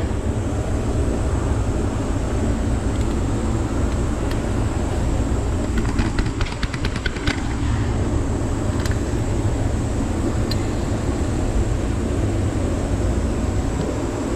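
Steady low rumble of vehicle traffic. About six seconds in comes a quick run of ratchet clicks as a manifold bolt is worked, with a few single metal ticks later.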